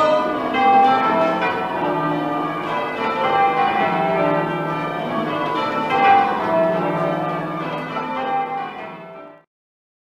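Change ringing on the priory's twelve-bell ring of full-circle tower bells: bells struck one after another in a steady rhythm, their tones overlapping and ringing on. The ringing stops abruptly near the end.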